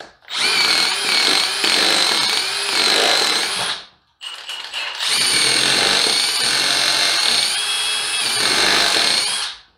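Cordless high-torque impact wrench running in reverse, backing lag bolts out of a pressure-treated wooden post. It runs in two long bursts with a high motor whine and a short pause between them.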